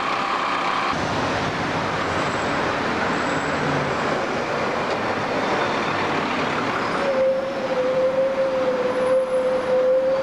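City street traffic: motor vehicles driving past. About seven seconds in, a steady whine starts and holds as a city bus approaches.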